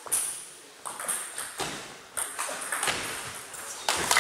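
Table tennis rally: the celluloid ball's sharp ticks off the bats and the table, one every half second or so, with a louder sharp burst about four seconds in as the point ends.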